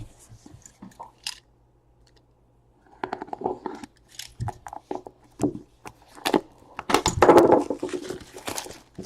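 A trading-card box and its packaging being handled: scattered clicks and scrapes, a brief lull, then a longer stretch of crinkling, rustling and scraping.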